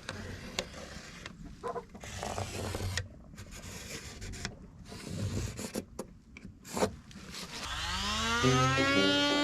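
Rubbing and scraping on wood with scattered knocks and clicks, from hand work fitting a chicken coop door. About eight seconds in, music with a brass sound swells up and becomes the loudest sound.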